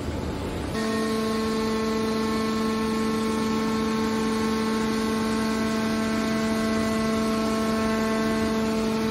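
Hydraulic scrap metal baler's power unit running under load as its lid cylinder closes the press box, a steady pitched hum with a whine in its overtones that sets in about a second in after a brief stretch of broad machine noise.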